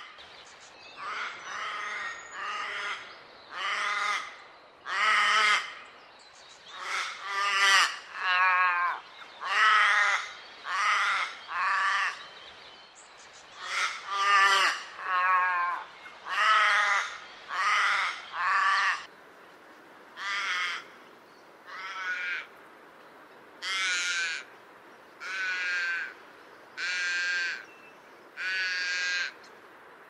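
Forest raven (Corvus tasmanicus) calling: a long series of harsh, buzzy caws, each about half a second long. The caws come in quicker runs at first and later fall into an even rhythm of about one every second and a half.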